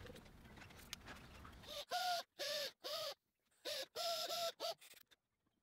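Small pneumatic die grinder run in several short trigger bursts, each a high steady whine with air hiss, as it cuts around the raised lettering of a wooden casting pattern. The bursts start about two seconds in and stop about five seconds in.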